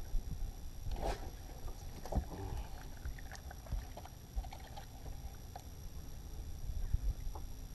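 Low rumbling noise of a bass boat sitting on the water, with scattered short clicks and knocks from rod-and-reel handling as a small bass is reeled in and lifted aboard.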